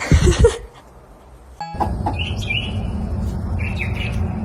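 A bird chirping several short times over a steady low background rumble. The sound opens with a brief, loud burst of noise.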